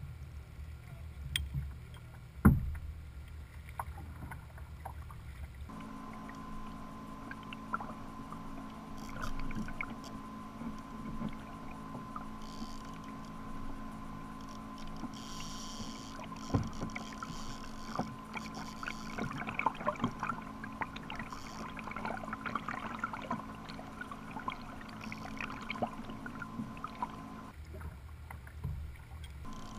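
Water lapping and dripping around a sit-on-top fishing kayak being paddled on calm sea, with a sharp knock about two seconds in. From several seconds in until near the end, a steady low hum runs under the small splashes.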